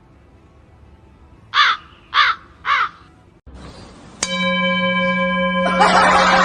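Three short caw-like animal calls, each rising and falling in pitch, about half a second apart. About four seconds in, a sudden steady ringing tone like a struck bell starts and holds, with a louder jumble of noise joining it near the end.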